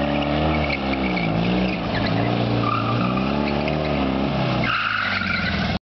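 Fiat 126p's air-cooled two-cylinder engine revving up and down again and again as the car is driven hard, with tyres squealing briefly about two and a half seconds in and again near the end.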